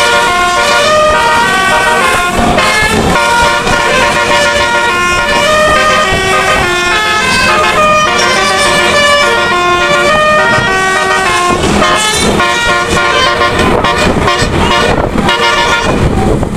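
Bus telolet musical air horn with nine trumpets playing a tune, its loud pitched notes stepping up and down in quick succession.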